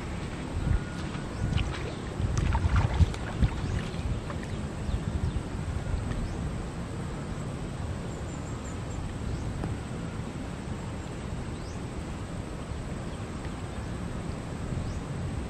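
Wind buffeting the microphone: a steady low rumble with stronger gusts in the first few seconds.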